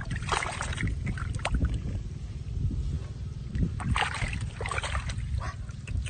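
Hands splashing and squelching in shallow muddy water while grabbing a fish, in irregular bursts near the start and again about four seconds in, over a steady low rumble.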